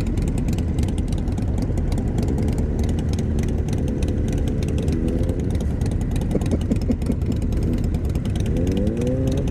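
Motorcycle engines running in a group of bikes setting off, with an engine's pitch climbing as a bike accelerates, once in the middle and again near the end.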